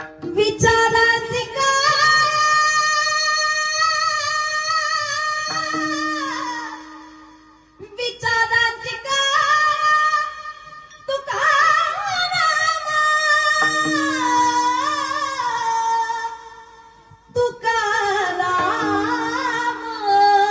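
A woman singing long, ornamented held notes of a Marathi devotional kirtan, the pitch wavering and sliding within each note, in three long phrases with short breaks for breath. A steady low tone sounds underneath at times.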